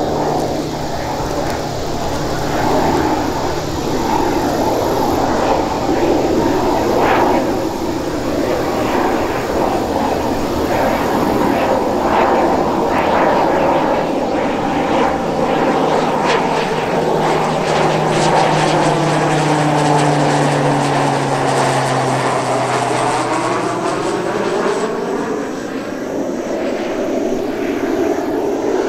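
Beechcraft T-6 Texan II's turboprop engine and propeller running steadily on approach with the landing gear down. The engine's tone drops in pitch a little over 20 seconds in as the plane passes by, then the sound eases slightly.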